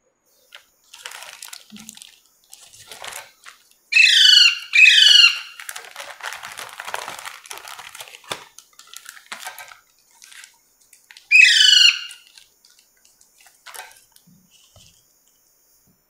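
A green pet parrot squawking: two harsh calls close together about four seconds in and a third near twelve seconds. Between the calls, a plastic packet crinkles as it is opened.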